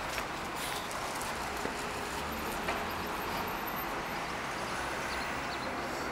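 Steady outdoor background hiss with a low rumble, broken by a sharp click at the very start and a couple of faint taps.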